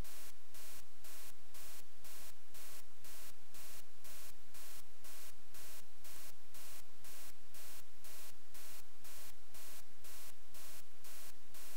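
Steady electrical static hiss from the recording chain, pulsing evenly about three to four times a second.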